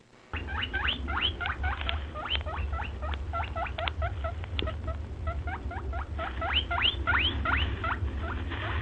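A small animal squeaking rapidly: a fast series of short, high, rising squeaks, several a second, over a steady low hum.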